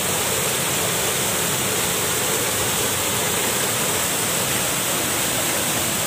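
A small waterfall pouring into a river pool: a steady, unbroken rush of water.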